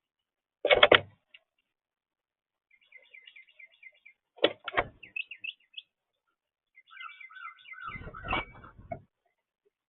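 Small birds chirping in quick runs of short notes, broken by three loud low thuds, one about a second in, one near the middle, and a longer one near the end.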